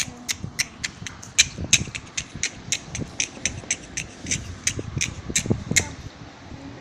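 An uneven run of sharp taps, about three a second, that stops near the end, over soft thumps and rustling.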